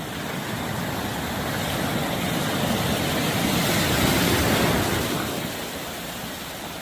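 Sea surf washing onto the beach: a steady wash of noise that swells to a peak about four seconds in, then eases off.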